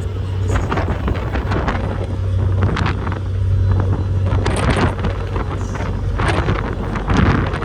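Passenger ferry's engines running steadily underway, a constant low hum. Over it come irregular rushes of wind buffeting the microphone.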